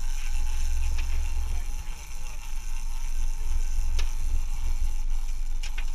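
Steady low rumble of a sportfishing boat's engines with wind on the microphone, and a few sharp clicks.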